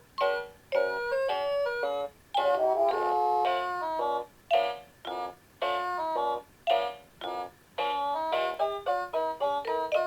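Seiko NR435P quartz alarm clock playing one of its built-in melody alarms. It is an electronic multi-voice tune of bright, clear notes, in short phrases with brief gaps between them.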